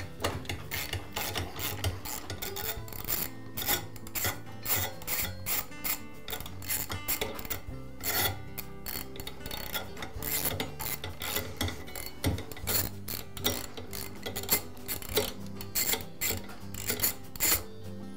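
Ratchet socket wrench clicking in quick, uneven runs as it is worked back and forth to loosen and unscrew a spark plug from a lawn mower engine's cylinder head.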